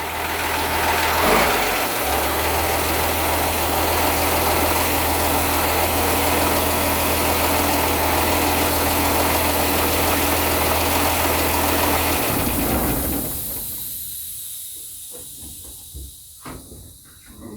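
M35A2 truck's turbocharged six-cylinder multi-fuel diesel engine running steadily with a loud hiss, then shut off about twelve seconds in and dying away over a second or two. A few faint knocks follow near the end.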